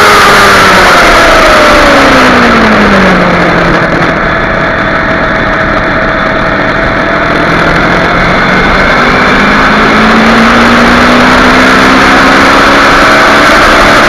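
Kawasaki Ninja 250R's parallel-twin engine under way, with heavy wind noise over the microphone: the revs fall about two seconds in, hold low for a few seconds, then climb steadily again from about eight seconds in as the bike accelerates.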